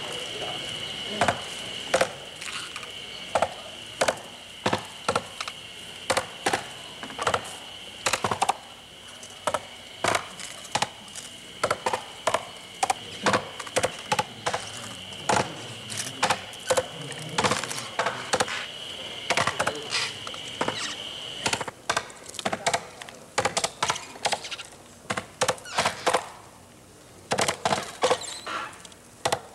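Several axes chopping into the trunk of a large hinoki cypress, sharp strikes coming irregularly, about one or two a second. This is the traditional hand-felling of the sacred tree. A steady high whine sits underneath and stops about two-thirds of the way through.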